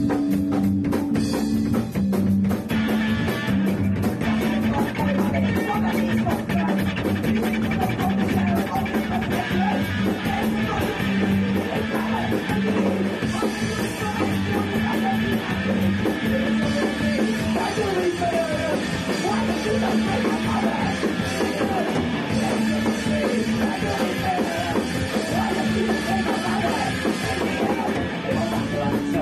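A punk band rehearsing a rock song: electric guitar playing with drums, the drums coming in right at the start.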